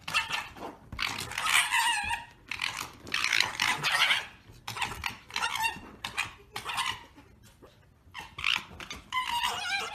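Two red foxes play-fighting, giving harsh, high-pitched chattering cries in repeated short bursts: the gekkering of foxes at rough play.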